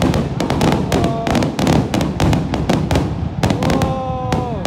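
Aerial fireworks shells bursting in a rapid barrage, sharp bangs and crackles following one another several times a second. Near the end a held tone slides down in pitch.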